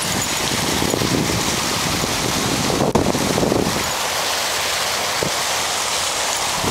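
Steady rushing of wind buffeting the camera microphone, with a brief knock about three seconds in.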